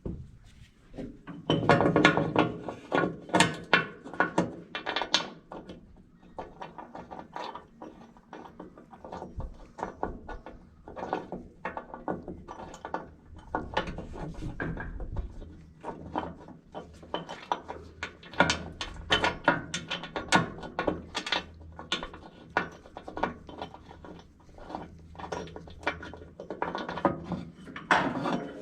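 Hand tools worked on metal: an irregular run of clicks, ratcheting and clanks, with a low steady hum underneath at times.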